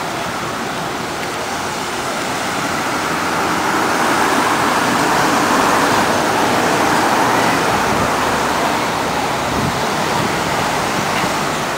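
Road traffic noise from a busy street: a steady wash of car and tyre sound that grows louder for a few seconds in the middle, as vehicles pass close, then eases again.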